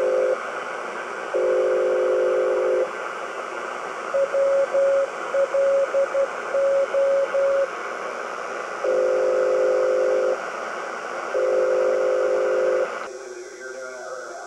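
Shortwave numbers-station signal through a Kenwood R-2000 receiver's speaker: steady static hiss with two long buzzy tones of about a second and a half, then a string of short on-off beeps, then two more long tones, following the spoken number groups. About 13 seconds in the hiss drops off suddenly as the receiver is tuned away to another frequency.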